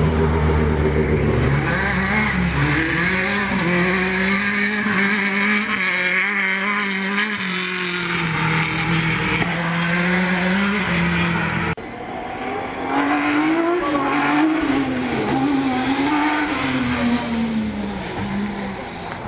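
Rally car engine revving hard, its pitch climbing and dropping again and again with throttle and gear changes as the car powers along a dusty dirt stage. The sound breaks off suddenly about twelve seconds in and another stretch of hard-revving engine follows.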